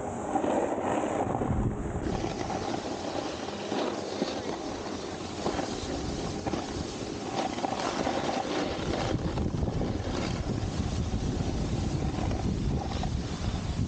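Snowboard scraping and chattering over hard, icy snow during a run, with wind rushing over the microphone.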